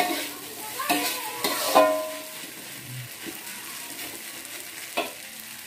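Metal spatula scraping and clanking against a metal wok as fried rice is stirred, over a steady sizzle. Several strikes ring briefly in the first two seconds, with one more clank about five seconds in.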